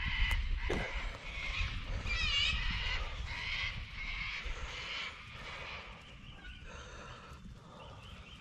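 Wild birds calling in repeated quick, warbling runs of up-and-down notes, loudest in the first three seconds and fading away after about five seconds. A low wind rumble on the microphone underlies the first seconds.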